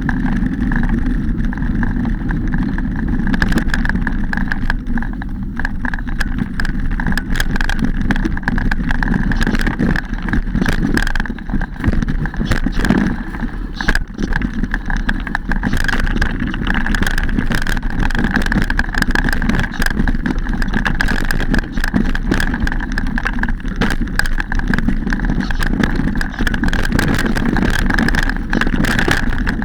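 Mountain bike ridden over a rough dirt trail: continuous wind rumble with frequent irregular rattles and knocks from the bike jolting over rocks and roots, under a steady high hum.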